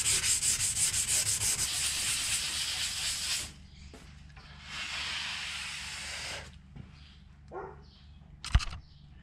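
Abrasive scour pad scrubbing a rusty, oil-wetted steel workbench top in fast back-and-forth strokes, about five a second, stopping about three and a half seconds in. A paper towel then wipes across the surface for about two seconds, and a single sharp knock comes near the end.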